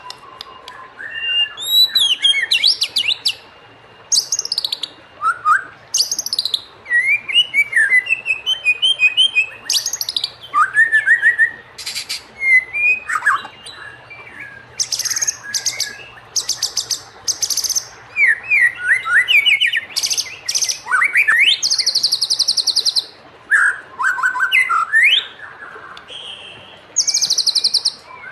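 White-rumped shama singing a long, varied song: loud whistled phrases, some rising and some falling, mixed with fast rattling trills and high buzzy notes, in bursts separated by short pauses.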